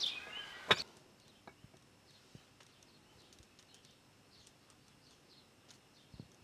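A front door shuts with a single sharp thud about three-quarters of a second in. Faint birdsong chirps carry on quietly afterwards, with a few light clicks.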